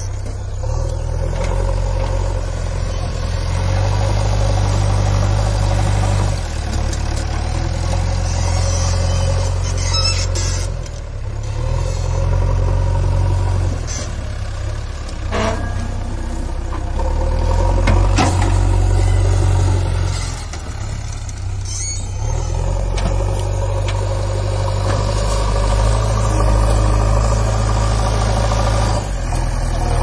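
JCB backhoe loader's diesel engine running under load, its pitch and level rising and falling as the front loader bucket digs in and tips soil, with a few brief knocks.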